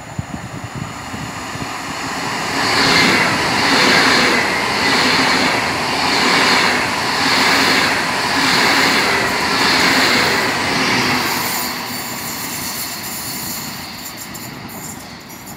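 Pendolino ED250 high-speed electric train passing through a station without stopping. Its rush of wheel and running noise builds as it approaches, swells and fades in a regular rhythm about once a second while the cars go by, then dies away as it recedes, with a few sharp ticks near the end.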